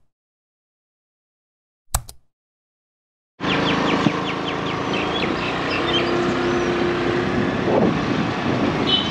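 A sharp click sound effect about two seconds in, then silence. From about three and a half seconds, steady road noise of a vehicle running, with birds chirping.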